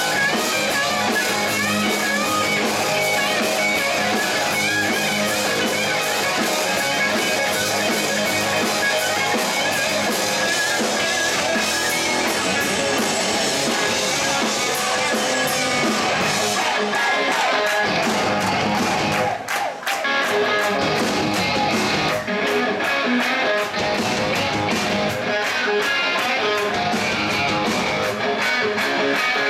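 Live rock band playing: distorted electric guitars over a drum kit, with wavering, bending guitar notes; the music drops back briefly a little past the middle, then carries on.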